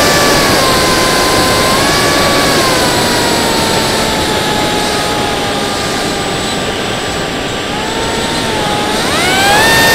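Theory W flying wing's electric motor spinning a 5045 bullnose propeller, heard from the onboard camera over wind rush. The whine slowly falls in pitch as the motor slows, then climbs sharply near the end as power comes back on.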